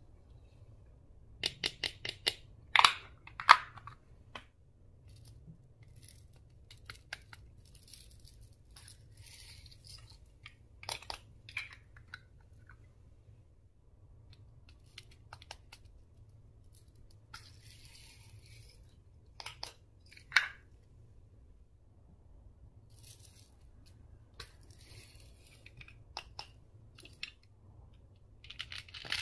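Slime being handled, with scattered sharp clicks, crackles and soft crinkling rustles. A quick run of clicks comes a second or two in, and single louder clicks come later.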